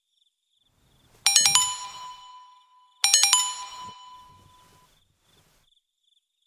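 Smartphone notification chime: a quick run of bright, bell-like notes ending on a ringing tone that fades away, sounding twice, about a second in and again near three seconds.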